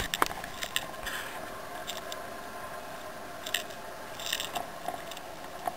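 Boat's Yamaha outboard engine running steadily under way, with scattered clicks and short rattles from the boat's gear.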